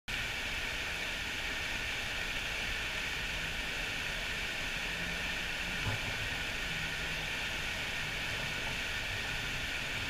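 Steady rush of a mountain stream's flowing water, an even hiss with no change in level.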